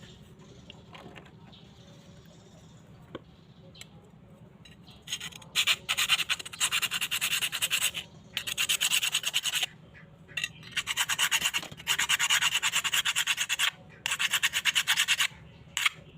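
Rapid back-and-forth abrasive scrubbing on the rusty steel of an old knife, stripping rust by hand. It comes in several bouts of a second or two with short pauses, starting about five seconds in.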